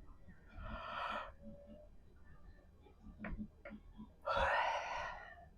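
A person yawning close to the microphone, twice: a shorter breathy yawn about half a second in, then a longer, louder one later on, with a couple of small clicks between.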